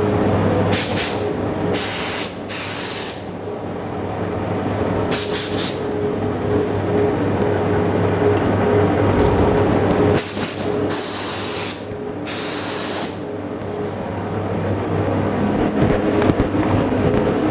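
HVLP spray gun spraying heavy-bodied polyester primer in short trigger bursts of hiss, about seven, each up to a second long, as test passes while its pattern and air pressure are being set up. A steady low hum runs underneath.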